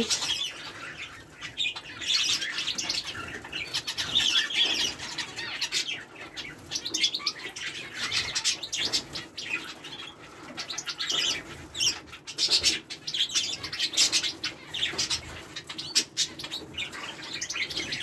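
A mixed aviary flock of canaries and finches chirping and calling continuously, with short flutters and flaps of wings scattered throughout.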